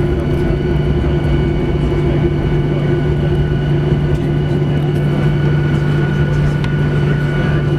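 Steady cabin drone inside a Boeing 737-800 on the ground after landing: a constant rumble with several unchanging tones on top.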